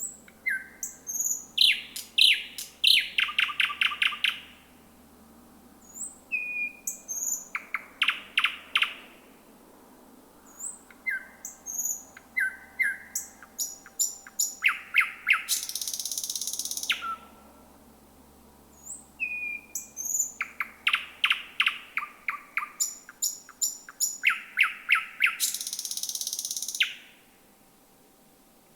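Thrush nightingale singing: four phrases of rapid clicking trills, short whistled notes and a harsh rasping buzz, with pauses of a second or two between phrases.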